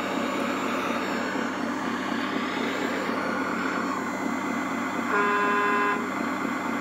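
Sound module of a radio-controlled model wheel loader playing a steady diesel engine running, with a single horn-like toot of about a second near the end.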